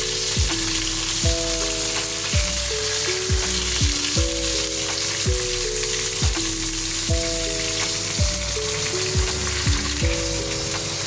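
Fish head and bones with ginger frying in a little oil in a nonstick pan, a steady high sizzle. Background music plays over it, with chords changing about once a second.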